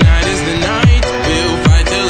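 Background electronic music with three deep bass hits, each falling in pitch, a little under a second apart, under sustained melodic lines.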